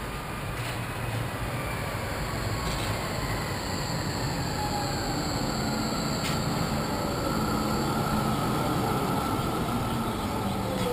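A tram running by, a steady wash of noise growing slowly louder, with whining tones that fall slowly in pitch.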